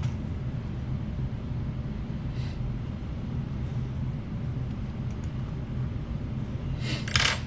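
Steady low background hum, with no distinct event; near the end there is a brief faint hiss.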